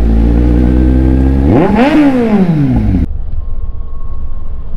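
Kawasaki Z800 inline-four engine running steadily, then revved once: the pitch climbs sharply and drops back about two seconds in. Just after three seconds the sound changes abruptly to a quieter, duller engine rumble with the high end cut off.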